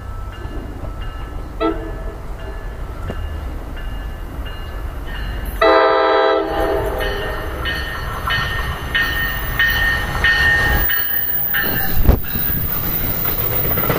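NJ Transit commuter train sounding its horn in one loud blast about six seconds in, with a repeating ringing tone about twice a second around it. Near the end the bi-level coaches rush past with a rising rumble and clatter of wheels on the rails.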